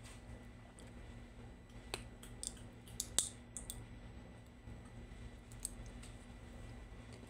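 Metal kitchen tongs clicking and clinking against a metal baking tray and a steel pot while handling boiled chicken: a handful of sharp clicks from about two seconds in, the loudest just after three seconds, and a couple more later. A low steady hum runs underneath.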